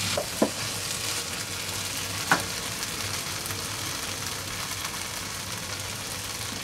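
Drumstick pods and potato pieces sizzling in hot masala in a pan, with a silicone spatula stirring at first and one sharp knock about two seconds in; then a steady sizzle.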